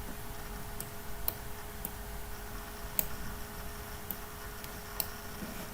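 About six sharp, irregularly spaced clicks, the strongest about three seconds in, over a steady electrical hum and faint hiss.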